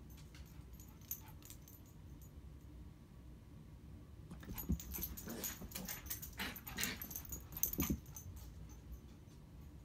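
A small dog making a run of short play vocalizations, bunched between about four and eight seconds in.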